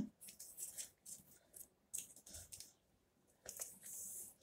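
Faint, intermittent rustling and light clicks of comic books and card being handled and shuffled, with a slightly longer rustle near the end.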